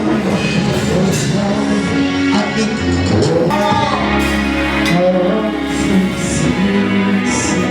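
Live gospel worship music: singing over a band with bass, keyboard and drums.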